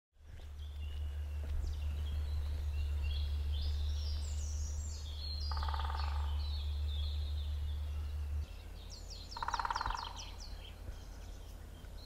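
Woodland birds singing and chirping, with two short, very rapid drum rolls of a great spotted woodpecker drumming, about five and a half and nine and a half seconds in. A louder low rumble underneath stops about eight and a half seconds in.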